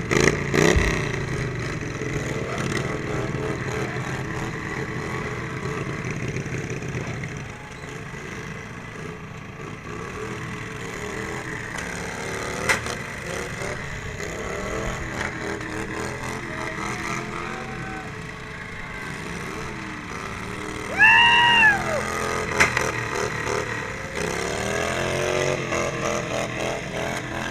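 Derby riding lawn mower's small engine running and revving. There are a few sharp knocks, and a loud high call rises and falls about three-quarters of the way through.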